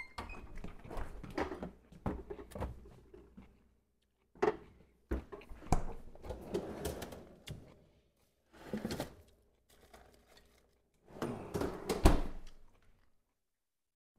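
A kitchen refrigerator being opened and rummaged in: door and drawer clunks, with items rustling and clattering in several separate bouts. A sharp thump near the end is the loudest sound.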